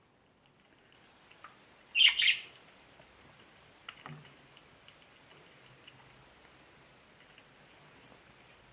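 Budgie giving one short, loud squawk about two seconds in, followed by a few faint clicks.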